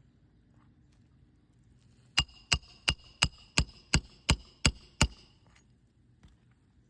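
Roofing hammer striking a roof snake to drive a nail into a shingle: nine quick blows, about three a second, starting about two seconds in, each with a short metallic ring.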